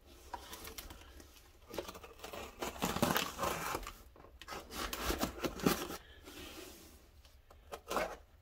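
A tape-wrapped cardboard box being handled and worked open: cardboard scraping and rustling and packing tape tearing, in irregular bursts.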